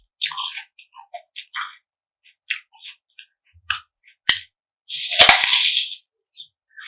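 Close-miked eating sounds: wet chewing with lip smacks and small clicks, then a louder noisy burst of about a second, about five seconds in.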